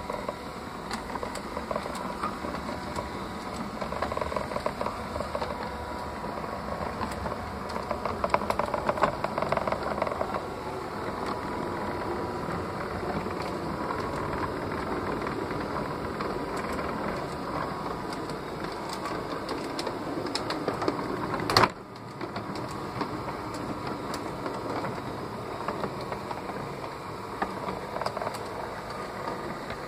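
LGB model rack-railway locomotive (22460) running: a steady whirring of its electric motor and gear drive, with fast fine clicking of wheels on the track, heard from on board the train. A single sharp clack about two-thirds of the way through.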